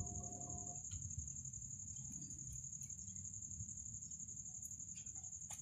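Steady high-pitched insect trill over a faint low rumble, with a few soft clicks.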